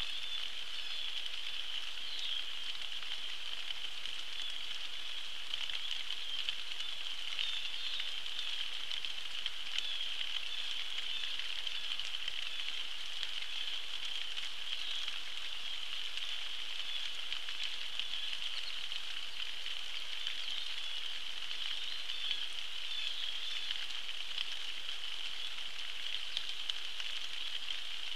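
Steady rain falling on a pond, an even hiss of many small drops.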